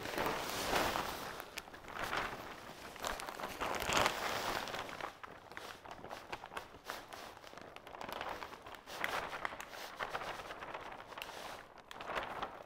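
Potting mix pouring from a plastic bag into a planter box: a rushing, rustling noise in irregular swells, heaviest in the first few seconds, then in shorter bursts as the bag empties and the soil is shifted.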